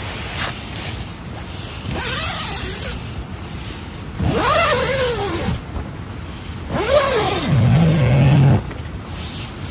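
Zipper on a tent's mesh inner door being pulled open in two long strokes, its pitch rising and falling with the speed of the pull, over steady heavy rain on the tent.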